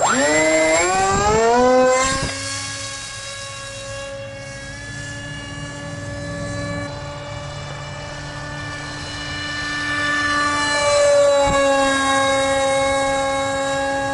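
Electric motor of a foam RC plane, a Heads Up RC Zoom 450 spinning a 6x3 propeller, spooling up to full throttle at launch as a rising whine over about two seconds. It then eases back a little and settles into a steady propeller whine, which grows louder about ten seconds in as the plane flies closer.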